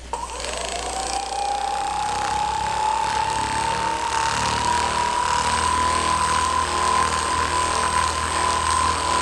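Handheld electric massager switched on: its motor whine rises in pitch within the first second, then runs steady over a buzzing rattle.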